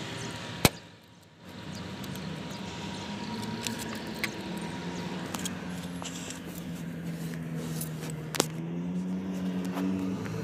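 Car engine and road noise heard from inside the cabin while driving, the engine pitch rising towards the end as the car speeds up. A sharp click sounds shortly after the start and another about two seconds before the end.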